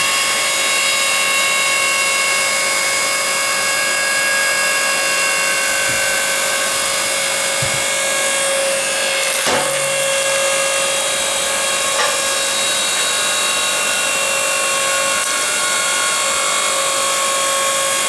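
Electric log splitter running: its electric motor and hydraulic pump make a loud, steady whine as the ram pushes a log toward the splitting wedge. Two brief knocks come a little past halfway.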